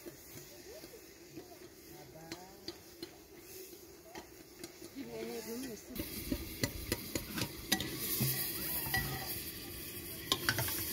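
A metal teaspoon stirring tea in a glass tumbler, clinking against the glass in a run of sharp ticks from about halfway on, over a steady hiss.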